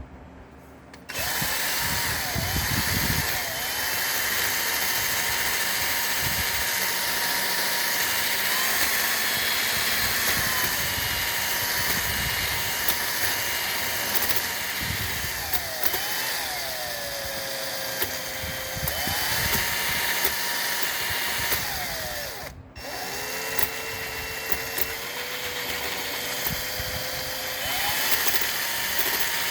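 A handheld power tool's motor running, its whine dipping in pitch and recovering again and again as it is loaded. It stops briefly about three-quarters of the way through, then starts again.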